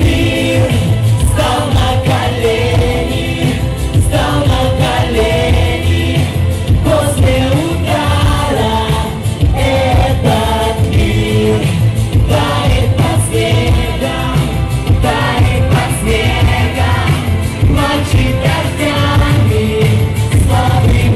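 Pop-rock song playing: a melodic sung line over a full band backing with a steady beat and heavy bass.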